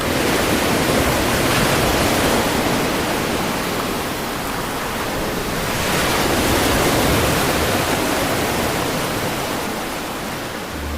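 Sea surf washing onto a beach: a steady rush of noise that swells, eases and swells again, fading toward the end.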